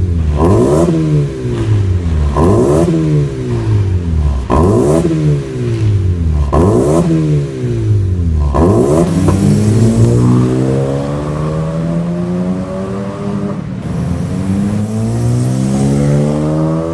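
Honda Civic 1.8 i-VTEC four-cylinder engine through an aftermarket exhaust, revved in four quick blips about two seconds apart, each rising fast and falling back. From about nine seconds in it accelerates, pitch climbing steadily, dropping at a gear change, then climbing again.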